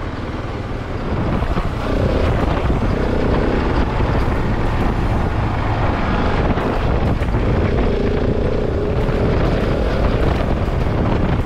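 Husqvarna 701 enduro motorcycle's single-cylinder engine running under way on a gravel track, mixed with wind buffeting the microphone. It gets louder from about a second and a half in.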